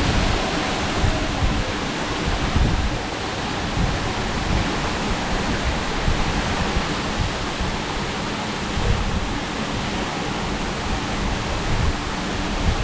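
Waterfall pouring: a steady, dense rush of falling water with a deep rumble underneath.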